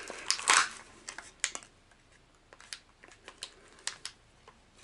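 Small clear plastic lure package being worked open by hand: irregular sharp clicks and crackles, densest and loudest in the first second, then sparse scattered clicks.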